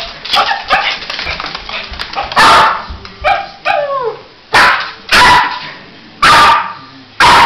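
A small black curly-coated dog barking: five loud, sharp barks spaced about a second apart through the second half, with softer barks before them and a couple of short yips that fall in pitch a little past the middle.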